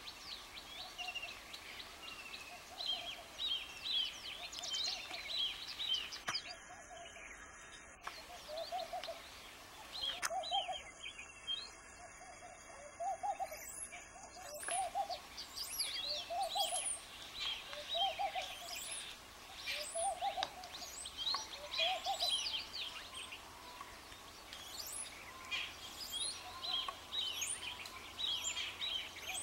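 Birdsong: many small birds chirping and calling, with a lower hooting call repeated about once a second for several seconds in the middle.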